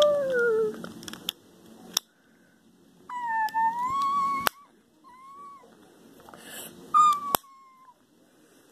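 Several short, high whining calls: a loud falling one at the start, a longer wavering one about three seconds in, and two brief ones later. Three sharp clicks come between them, the lid of a wireless-earbud charging case snapping shut.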